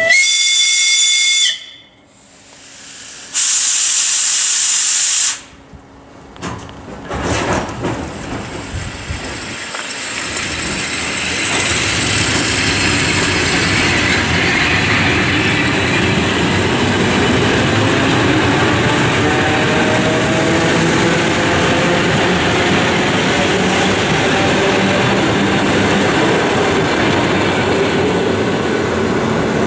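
ED9M electric multiple unit sounding a short horn blast, then a loud hiss of air lasting about two seconds. It then pulls away, its running and wheel-on-rail noise building steadily, with a faint rising motor whine.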